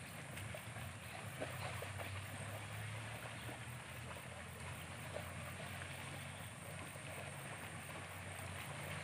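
Steady outdoor background noise: wind on the microphone over a steady low hum.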